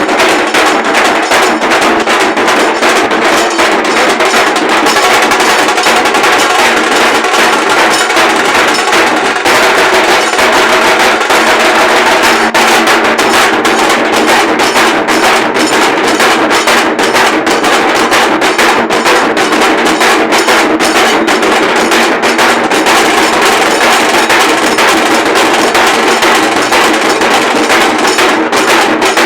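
Dhol drum ensemble playing a fast, dense, unbroken beat of sharp strikes, loud throughout.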